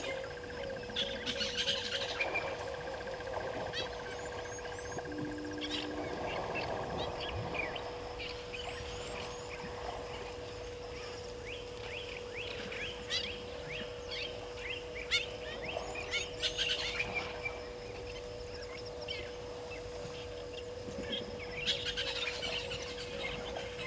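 Wild birds chirping and calling, many quick overlapping chirps, over a steady unbroken droning tone.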